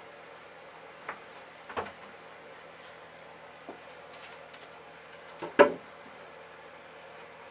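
Workshop handling noises: a few sharp, separate knocks and clicks, the loudest a double knock about five and a half seconds in, over a faint steady hum.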